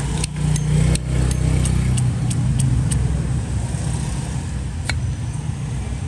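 Light metallic clicks from a Zippo Slim lighter being handled, about three a second for the first three seconds, then one sharper click near the end, over a steady low rumble.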